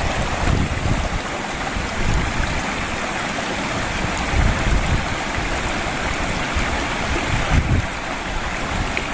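Shallow rocky stream rushing steadily over boulders and a small cascade, with wind buffeting the microphone in irregular low gusts.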